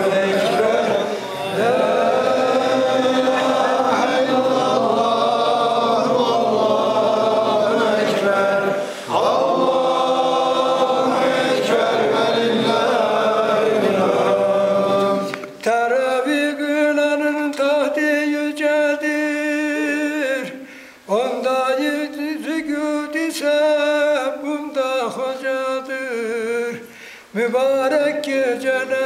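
Chanted Islamic religious song in Turkish: a group of voices singing together for about the first half, then a single voice with long, wavering, ornamented phrases.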